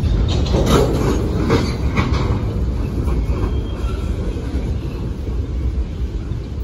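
Freight cars rolling past close by, a steady low rumble of steel wheels on the rails. A run of sharp clacks and squeals comes in the first two seconds or so.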